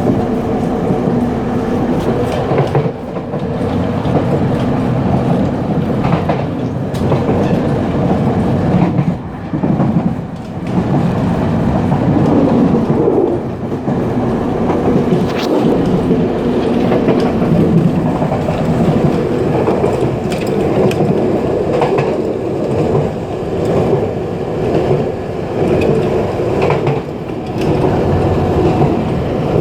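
Puyuma Express TEMU2000 tilting electric train heard from inside the gangway between two cars while running: a loud, steady rumble of wheels on rail and running gear, with scattered clicks and rattles.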